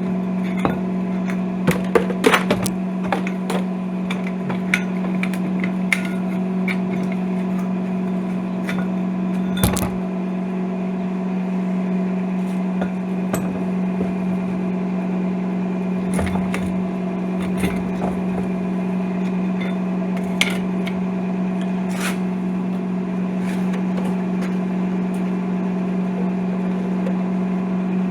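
Welding machine running with a steady low hum, scattered with sharp clicks and taps, most of them in the first few seconds, while a crack in a cast-iron wheel is being weld-repaired.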